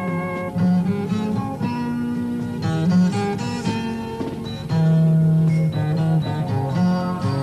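Instrumental background music: plucked strings over held low bass notes.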